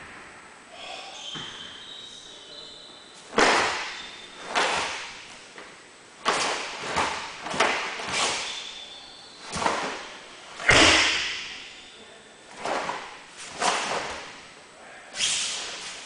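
A karateka's sharp, sudden movements through the Passai kata: about eleven quick snaps of the cotton gi and thuds of bare feet on the tatami as strikes and stances land. The loudest, a heavier thud, comes about eleven seconds in.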